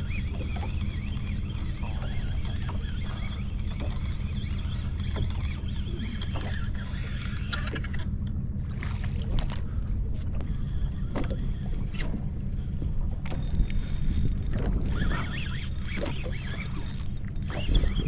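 A boat's motor runs steadily, with scattered clicks and knocks from fishing tackle being handled.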